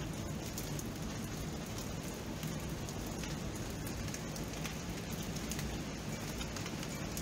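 Steady rain: an even hiss with scattered small drop ticks.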